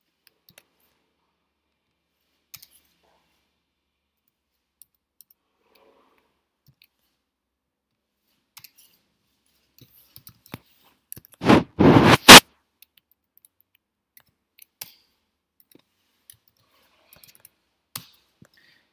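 Sparse faint clicks from a computer mouse and keyboard while spreadsheet formulas are entered, with one loud noisy burst lasting under a second about eleven and a half seconds in.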